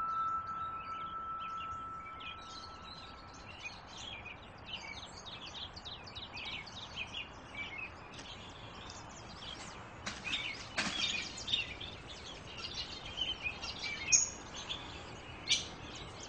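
Small caged birds chirping and twittering continuously, as in a pet shop. At the start a single ringing tone fades away over about three seconds, and there is one sharp knock about eleven seconds in.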